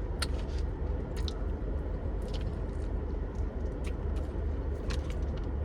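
Close-up chewing and biting into taco sushi, shrimp tempura sushi rolls in a taco shell, with scattered crisp crunches, a sharp one about a quarter second in. A steady low hum runs underneath.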